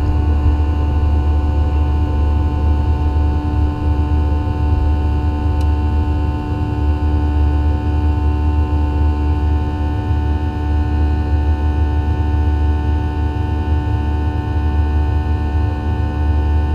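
Boeing 737-800's CFM56-7B turbofan engines at takeoff power, heard from inside the cabin as the jet lifts off and climbs: a steady deep rumble with several steady whining tones above it.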